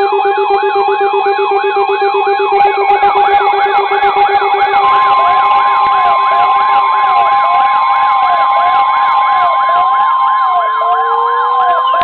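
Several weather alert radios sounding their alarms at once for a severe thunderstorm warning: overlapping warbling, hi-lo beeping and buzzing alarm tones. A pulsing low buzz drops out about seven seconds in, a steady tone joins about five seconds in, and a slowly rising tone comes in near the end.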